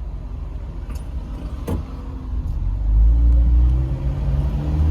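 Car engine and road rumble heard from inside the cabin, with a single click a little before halfway. About three seconds in it grows louder, the engine's pitch rising as the car accelerates.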